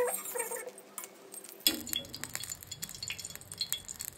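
Metal spatula clinking and scraping against a flat metal pan as oil is spread across it, a run of small sharp clicks from about two seconds in.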